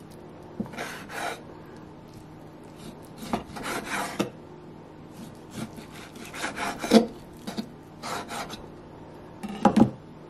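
Chef's knife slicing raw pork tenderloin on a wooden cutting board: irregular back-and-forth sawing strokes through the meat, the blade rubbing and knocking on the board, with the loudest knocks about seven seconds in and near the end.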